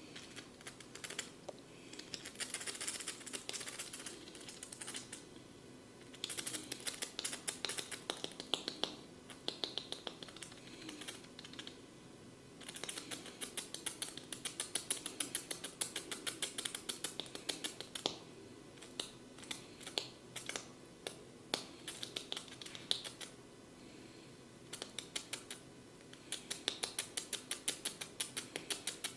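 A barber's fingers on the head and ears, close to the microphone: rapid runs of small, crisp clicks and crackles, in several bursts separated by short pauses.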